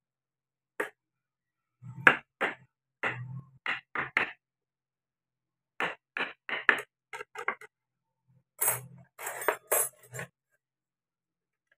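Wooden mallet tapping a carving chisel into wood, in irregular short strikes, singly and in quick runs of two or three with pauses between. A few strikes near the end sound brighter and rougher.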